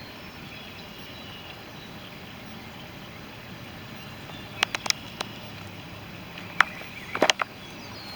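Steady background hiss, broken by a few sharp clicks and taps about four and a half seconds in and a louder cluster of knocks around seven seconds in.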